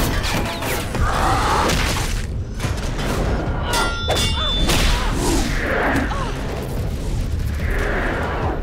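Animated fight sound effects: heavy booming impacts and thuds over a constant low rumble, with short shouts of effort between them.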